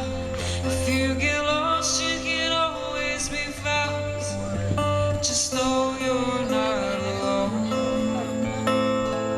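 Background song with acoustic guitar and singing.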